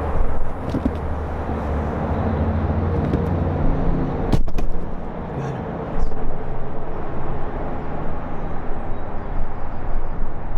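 Steady low rumble of city road traffic, with one sharp snap about four and a half seconds in.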